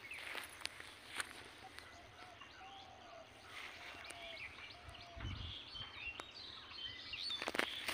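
Small birds chirping faintly, with several short calls in the second half, over scattered snaps and rustles of leafy greens being plucked by hand. There is a soft thump about five seconds in.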